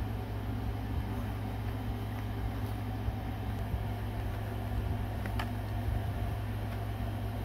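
A steady low hum with no words over it, and a single faint click about five seconds in.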